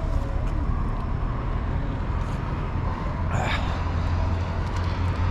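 Steady wind and road rumble on a moving motorcycle, with a brief falling whoosh about three seconds in.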